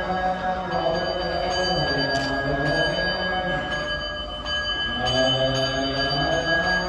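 Slow music: a gliding melody in the low and middle range over steady high ringing tones.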